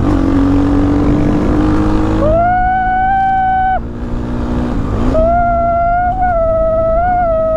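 Motorcycle engine running steadily while riding, its pitch easing slightly down in the first two seconds. About two seconds in, a loud steady high tone sets in over it, breaks off for about a second, then comes back and holds with small wavers.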